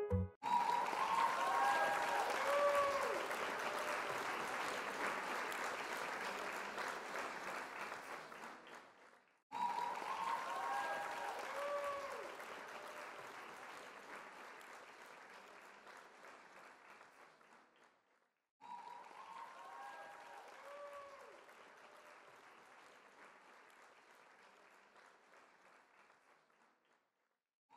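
Crowd applause with cheering, played three times over. Each time it starts suddenly and fades away, and the three passes follow the same pattern, like one recorded applause clip repeated.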